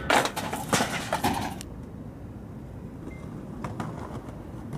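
Skateboard knocking and scraping on a metal stair handrail: a few sharp hits and a scrape in the first second and a half, then a few faint clicks over steady outdoor background.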